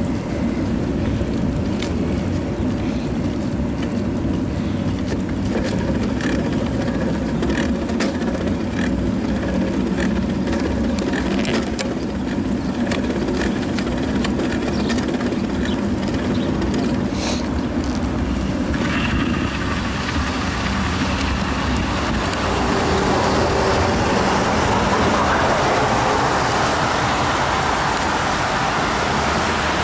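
Riding noise picked up by a bicycle rider's action camera: a steady rumble of wind and road with scattered clicks and rattles. About two-thirds of the way through it turns louder and hissier.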